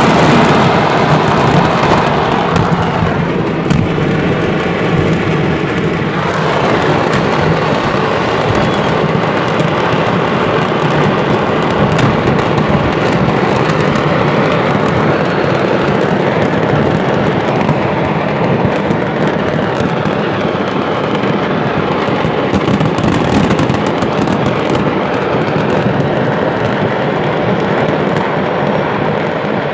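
Stockpiled fireworks going off in a continuous barrage as a fireworks market explodes and burns: dense crackling and popping with many sharp bangs over a steady rumble.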